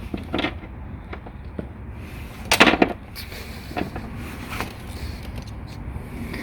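Knocks and scrapes of parts and tools being handled in a car's engine bay, with a louder clattering rattle about two and a half seconds in, over a low steady hum.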